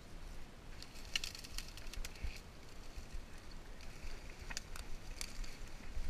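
Leaves and twigs rustling and crackling in dense undergrowth as people shift among the plants, in irregular snaps and ticks, over a low rumble of a handheld camera being moved.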